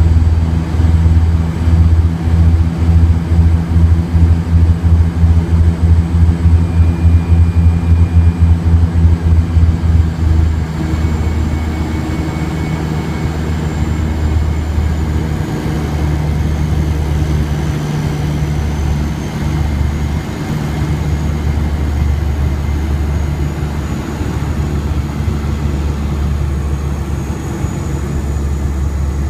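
Loud, low engine drone that throbs rapidly for about the first ten seconds, then settles into a steadier drone.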